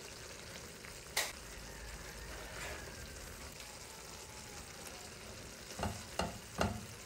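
Tofu and pechay sizzling and simmering in sauce in a frying pan while a plastic spatula stirs them. A sharp tap about a second in, then three quick knocks of the spatula against the pan near the end.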